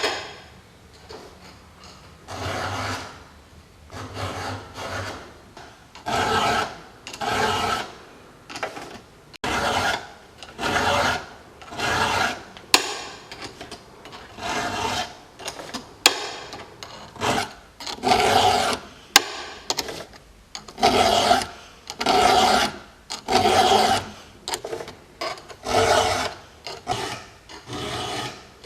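Repeated rasping strokes on wood, roughly one a second and unevenly spaced, with a few sharp clicks among them.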